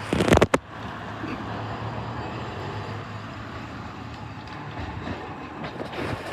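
Toyohashi Railway Mo3200-type tram, a 1955-built former Meitetsu car, running on street track: a steady rumble of wheels on rail with a low hum. Two sharp knocks come about half a second in.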